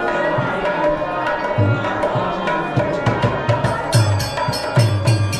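Hindu devotional kirtan music with a hand drum playing repeated deep strokes under sustained melody tones. Bright metallic cymbal strikes join in about four seconds in.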